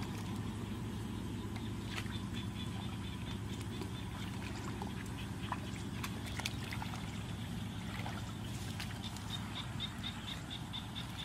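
Muddy ditch water being stirred and lightly splashed by people wading and groping for fish by hand. A high, rapidly pulsed animal call repeats in the background, at about six pulses a second, and is clearest near the end.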